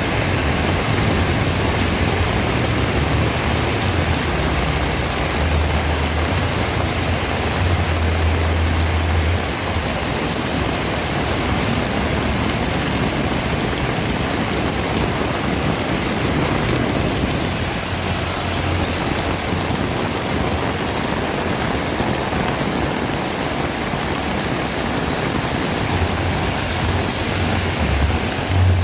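Heavy rain pouring steadily, a dense even hiss, with a low rumble that comes and goes.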